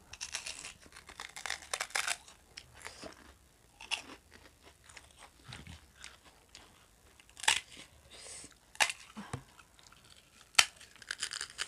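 Crispy fried finger snacks (gol finger fryums) being bitten, chewed and broken by hand, close up. A dense run of crunches comes in the first two seconds, then softer chewing, with a few sharp single cracks in the second half.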